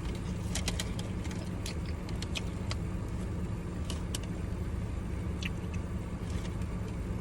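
Steady low hum of an idling car, with scattered light clicks and taps as the food and its container are handled.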